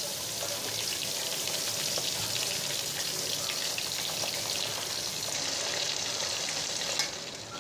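Marinated chicken and potatoes frying in hot mustard oil in a handi: a steady sizzling hiss full of fine crackles, just after the chicken has gone into the pot. It gets quieter about seven seconds in.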